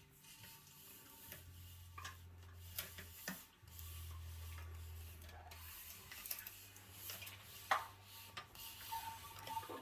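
Steel gym-machine cable being pulled slowly through the pulleys and frame of a cable pull-down machine: faint rubbing and scraping, with a few light clicks as the taped joint and cable knock past the hardware.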